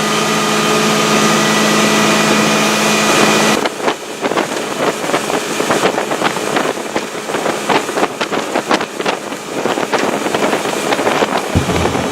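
Boat motor running steadily. About three and a half seconds in, the sound changes abruptly to a rougher, rushing noise full of short knocks and slaps, with the motor still under it.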